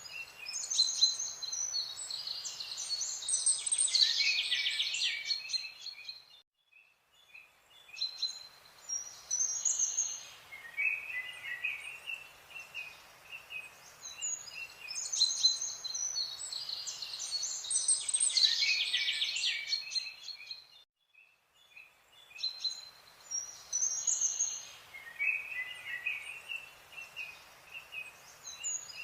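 Birds chirping and singing in a busy mix of high chirps and trills. The same passage repeats about every fourteen and a half seconds, each time with a brief gap of near silence.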